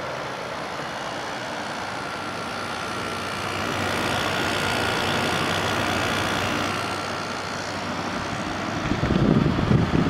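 2000 Quasar Cool Look HQ2061FH 6000 BTU window air conditioner running on cool, fan blowing and compressor running, in a steady hum with a faint steady whine. It grows louder in the middle, and a low rumble rises near the end.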